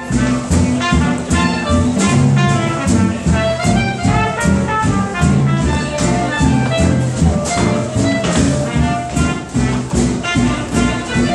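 Small live jazz band playing an up-tempo swing tune, starting abruptly: acoustic guitar chords and double bass keep a steady beat under a horn melody.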